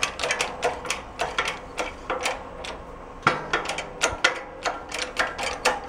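Hydraulic shop press being worked to push a shaft out of a bearing held in a bearing splitter, from a VW bus gear reduction box: an uneven run of sharp clicks, about four a second.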